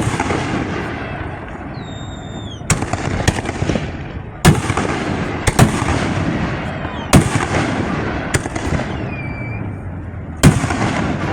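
Fireworks display: aerial shells bursting with sharp bangs every one to three seconds, each followed by crackling, with a few short falling whistles between the bursts.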